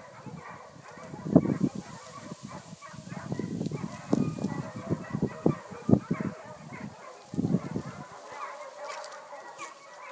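Dogs barking in irregular bouts of short barks, the loudest about a second and a half in and again around six seconds in.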